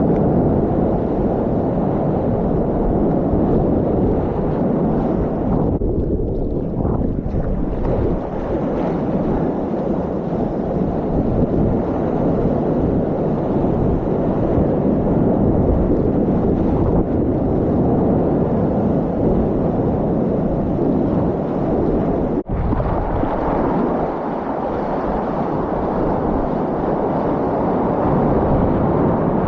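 Heavy wind buffeting the microphone over the rush of waves and water around a kayak surfing, a steady loud rumble with one very brief break about two-thirds of the way through.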